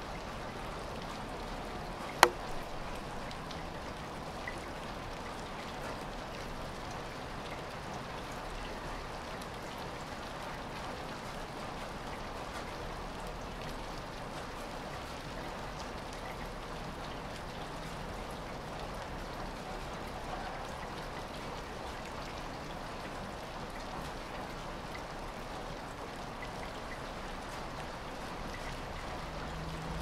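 Light rain falling outdoors: a steady, even patter of drops. A single sharp click stands out about two seconds in.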